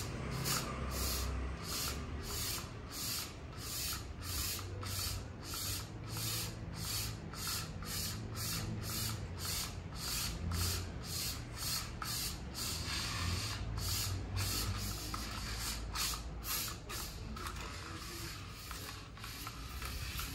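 A diabolo spinning on its string, whipped along by two hand sticks: a run of short, hissing whooshes, about two or three a second, as the string rubs around the spinning axle. The strokes die away a few seconds before the end, when the diabolo is stopped.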